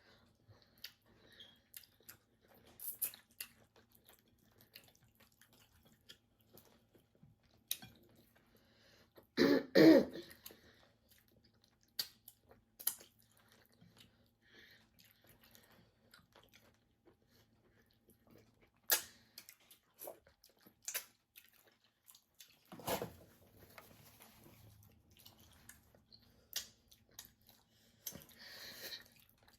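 Close mouth sounds of people eating tilapia: scattered short smacks and clicks of chewing, with a loud cough about ten seconds in and another louder sound about 23 seconds in.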